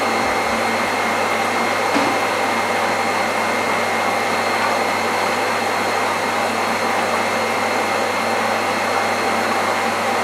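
Water jetting under pump pressure from several holes drilled in a plastic supply pipe on a leak-test rig, with the rig's electric pressure pump running. It makes a steady, loud hiss over a constant hum and a thin whine. The pipe is leaking at every hole.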